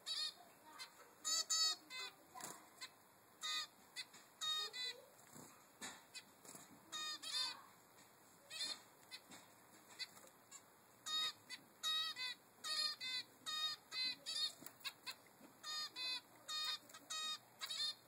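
A three-week-old zebra finch fledgling begging for food from its parent: short, high calls repeated in quick runs that come thicker in the second half.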